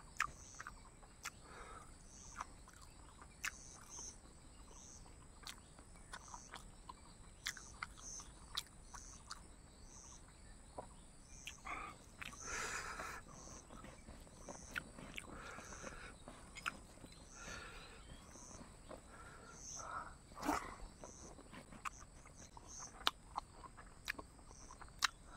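A person eating by hand: soft chewing and mouth smacks, with small clicks and squelches from fingers working rice and pork. Behind it an insect chirps steadily, about once every three-quarters of a second, over a thin high drone.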